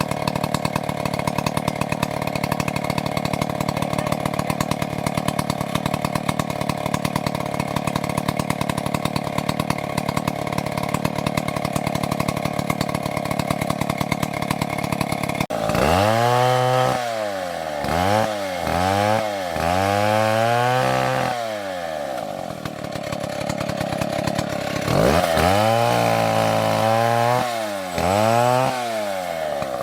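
Chainsaw engine running at a steady pitch for about fifteen seconds. It then changes abruptly to repeated revving, the pitch rising and falling several times, with a short steadier stretch before it revs up and down again near the end.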